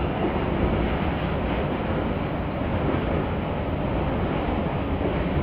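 Freight train of container wagons rolling past on the main line, a steady rumble of wheels on rail.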